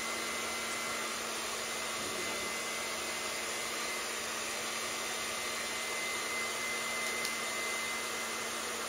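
Handheld hair dryer blowing steadily while drying a dog's coat, a constant rush of air with a faint high whine.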